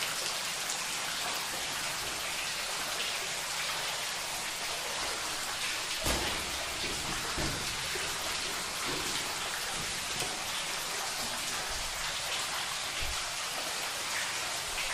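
Steady patter and hiss of water inside a flooded mine tunnel, like rain, with a couple of dull thumps about six seconds in and near the end.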